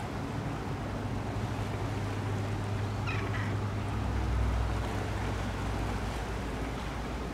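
Steady low hum of a high-speed catamaran ferry's engines carried across the water, over a wash of wind and sea noise. The low rumble swells briefly about four seconds in, and a short faint high-pitched call sounds about three seconds in.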